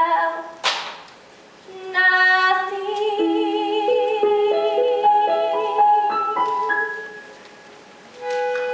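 Teenage girl singing a show-tune solo with instrumental accompaniment, holding notes with vibrato. A sharp intake of breath comes just after the first held note. After a pause she sings her final phrase, which ends about seven seconds in, and the accompaniment sounds a new sustained note near the end.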